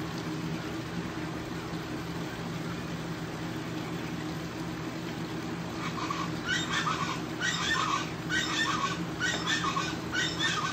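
A steady hum, then from about six seconds in a short, high squeak that repeats about once a second.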